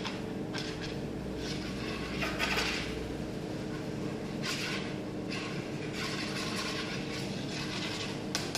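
Bengal kittens scuffling about on a wooden tabletop: irregular rustling and scraping that comes and goes over a steady low hum, strongest about two and a half seconds in.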